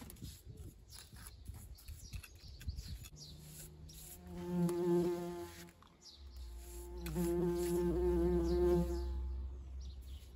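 A bumblebee buzzing in flight close by, a pitched drone with a slight wobble that comes in two passes, the first starting about three seconds in and the second a little after the middle. A low rumble sits under the second pass.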